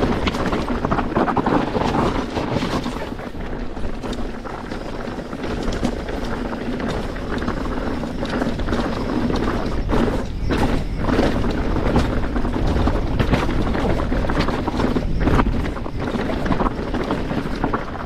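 Mountain bike descending a rough, rocky trail at speed: wind rushing over the microphone, with tyres crunching over loose rocks and the bike rattling and knocking over the bumps.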